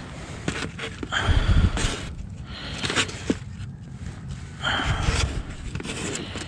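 Close-up rustling and handling noise against a body-worn microphone. There are two louder breathy bursts, the first about a second in and the second about five seconds in, and scattered small clicks.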